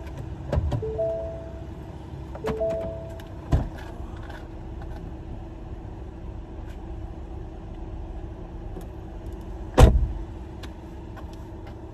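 A car's two-note warning chime sounds three times in the first three seconds, over a steady hum, while the car seat and buckles knock about. Near the end a car door shuts with a heavy thump, the loudest sound here.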